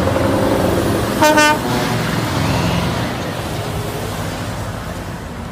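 Truck engine running steadily with a low rumble, with one short horn toot about a second in; the engine sound fades gradually.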